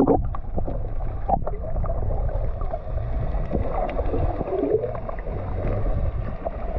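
Muffled sloshing and bubbling of seawater around a GoPro action camera at or under the sea surface, with many small clicks and pops over a low, steady rumble.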